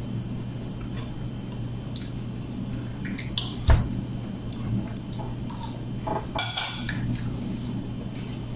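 Eating sounds at a table: scattered small clicks and clinks on dishes, with one sharper knock a few seconds in and a short cluster of clicks near the end, over a steady low hum.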